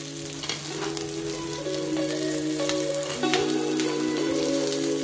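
Sweetcorn rounds sizzling and crackling in hot oil in a frying pan, with a few light clicks of metal tongs turning the pieces. Soft background music with sustained chords plays underneath.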